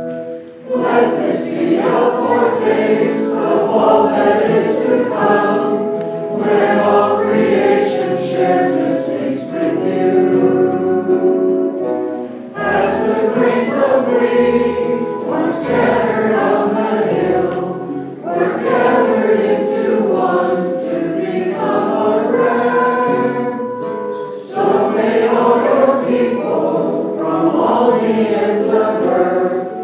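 Voices singing a hymn together, in sustained phrases of several seconds each with short breaks between them.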